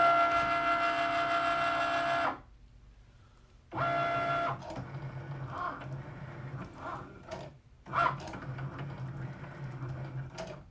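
Cricut cutting machine's motors whining steadily as the carriage and mat move, stopping about two seconds in, then resuming in short start-and-stop movements as the heated Foil Quill draws foil lines onto the cardstock.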